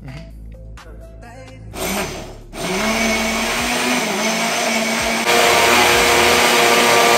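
Electric kitchen blender switched on after a brief first burst, its motor spinning up to speed and then running steadily. It grows louder about five seconds in.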